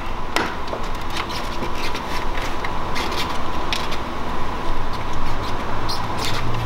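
Plastic clip tabs of a BMW's gloss black kidney grille clicking and creaking as they are pushed in and the grille is worked out of the front bumper: a run of irregular clicks over a steady background hum.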